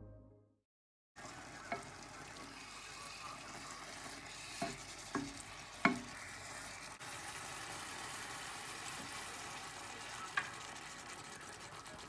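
Chopped leafy greens sizzling steadily in a frying pan, with a spatula knocking and scraping against the pan a few times, the sharpest knock about six seconds in. Background music fades out just before the sizzle starts.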